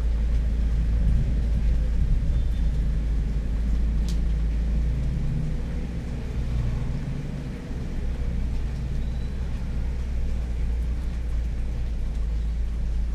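Steady low rumble, with a single faint click about four seconds in.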